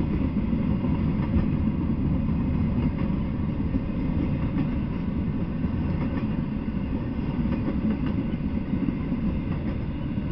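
Intermodal freight train rolling past: a steady rumble of steel wheels on the rails, with a few faint clicks from the wheels.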